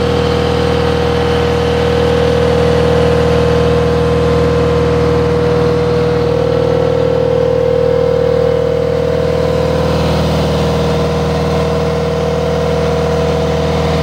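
Caterpillar skid steer's diesel engine running steadily while the lift arm and bucket are worked, with a steady high whine over the engine that shifts in pitch slightly a couple of times.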